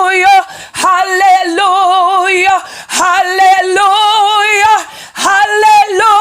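A woman singing in a high voice, holding long notes with a strong vibrato in phrases of about two seconds with short breaths between.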